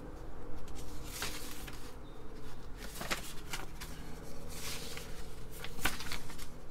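Sheets of printed paper rustling in short, irregular handlings as they are leafed through, over a steady low electrical buzz.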